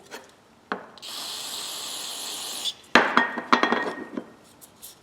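Aerosol can of carburetor cleaner spraying in one steady hiss for under two seconds, then a sharp knock followed by several metallic clinks.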